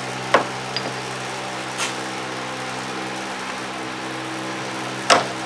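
A steady machine hum with a few sharp metal clicks and knocks from handling a hay mower spindle's steel gear and housing; the loudest knock comes near the end.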